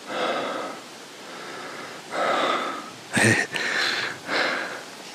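A person's breathing close to the microphone: several heavy breaths about a second apart. There is a short bump about three seconds in.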